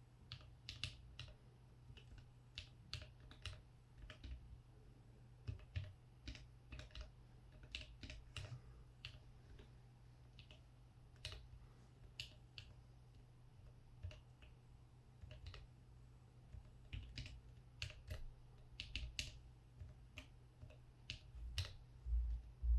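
Typing on a small mechanical numpad with Holy Polar Panda tactile switches and Infinikey Laffy Taffy keycaps, in uneven bursts of keystrokes with short pauses between numbers. Near the end there is a louder low thump.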